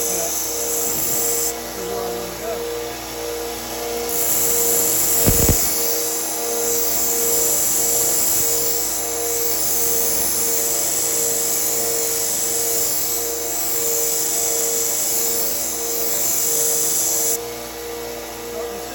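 1x30 belt sander running steadily, with a steady hum that pulses evenly about twice a second and a high hiss from the abrasive belt as a knife blade is ground against it. There is a single low thump about five seconds in.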